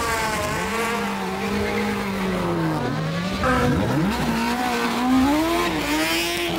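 Hillclimb race car engine running hard, its pitch climbing and falling with throttle and gear changes, with a sharp drop and quick climb about four seconds in.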